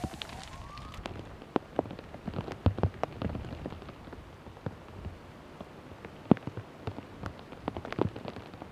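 Burning timber of a fully involved barn fire crackling, with irregular sharp pops over a steady hiss.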